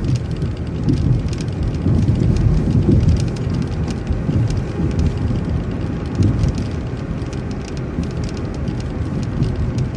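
Transit bus driving along the road: a steady low rumble with frequent light rattles and ticks.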